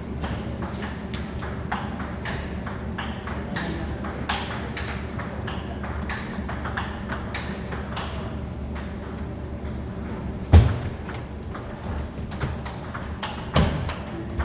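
Table tennis balls clicking off bats and tables in rapid, irregular ticks, over a low steady hum. A single loud, dull thump sounds about ten and a half seconds in.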